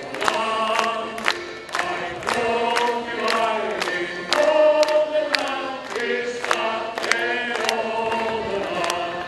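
A group of voices singing a song together, with a steady beat of sharp strokes about twice a second.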